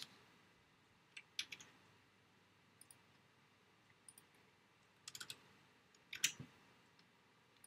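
Sparse clicks of a computer mouse and keyboard keys, a few single clicks and quick pairs spread over several seconds, as a block of code is selected, copied and pasted. Between them there is only faint room tone.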